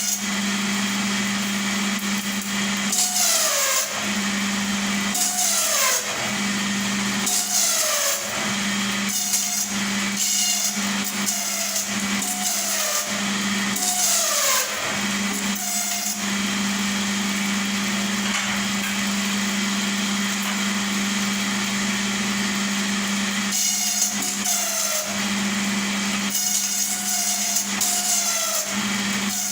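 Electric satay-skewer making machine running. Its motor gives a steady hum, and a falling squeal and a burst of rasping wood-working noise come every second or two, with a stretch of plain hum in the middle.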